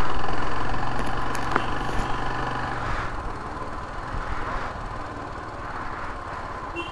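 A motor vehicle's engine running steadily, its sound fading gradually as it gets quieter.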